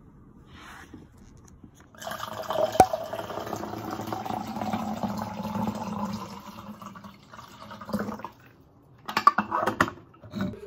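Water poured over ice into a clear plastic Starbucks tumbler, a steady pour with a sharp clink early on that lasts about six seconds from about two seconds in. Near the end, a quick cluster of plastic clicks and taps as the lid is pressed onto the tumbler.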